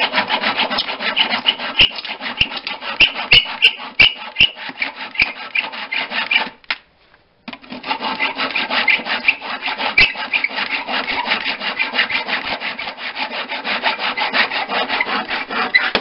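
Handsaw cutting through a wooden board with quick, regular back-and-forth strokes. The sawing pauses for about a second some six and a half seconds in, then carries on.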